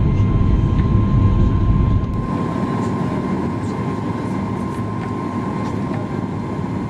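Steady cabin noise of a Boeing 737 MAX 8 airliner: a deep rumble of engines and airflow with a faint constant tone on top. About two seconds in, the low rumble drops off sharply, and a quieter, even hum carries on.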